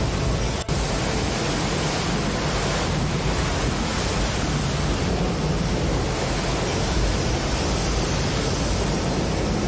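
A steady, even rushing noise with a brief dropout under a second in.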